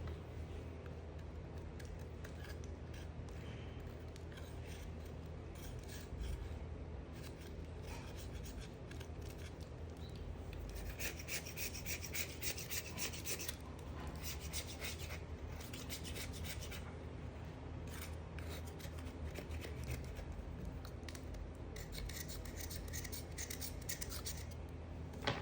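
A knife cutting and scraping into a bar of soap in repeated rasping strokes, louder in a spell near the middle and again near the end.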